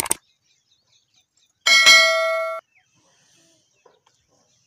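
Subscribe-button animation sound effect: two quick mouse clicks, then about two seconds in a bright bell ding that rings for under a second and cuts off suddenly.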